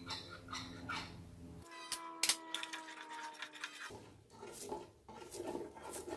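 A metal spoon tapping and scraping a small glass bowl, with a couple of sharp ringing taps about two seconds in, as cornstarch slurry is emptied into the pot. From about four seconds in, a wooden spoon stirs and scrapes through thickening sauce in a stainless steel stockpot.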